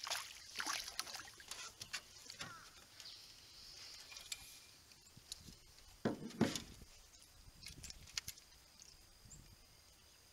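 A hooked crappie splashing at the surface as it is swung from the water, followed by clicks and rustles of handling in a small boat, with a louder thump about six seconds in.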